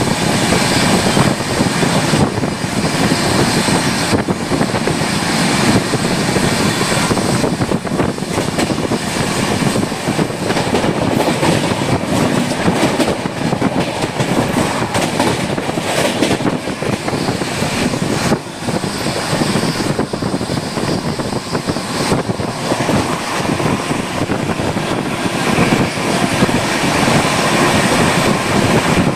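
12715 Sachkhand Express passenger train running along the line, heard from inside a coach: a loud, steady rumble and rattle of the wheels on the rails, mixed with rushing air.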